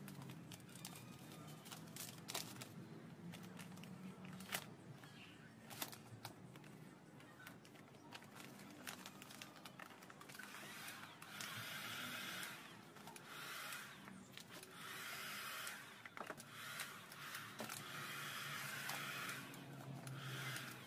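Clear plastic film crinkling as it is handled, then a cordless drill running in about five short bursts of a second or two each.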